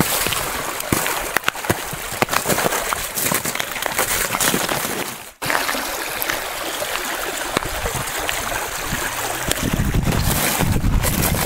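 Snowmelt stream rushing and trickling between ice, with splashes as rubber boots wade through it in the first part. The sound cuts out sharply for an instant about halfway, and wind rumbles on the microphone near the end.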